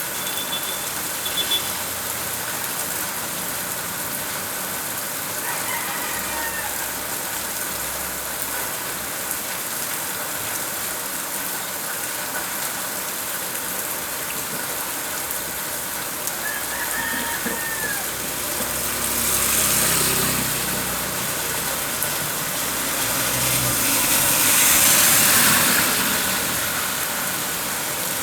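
Steady rain falling, with a rooster crowing faintly twice, about six and seventeen seconds in. Two swells of louder noise rise and fade about twenty and twenty-five seconds in.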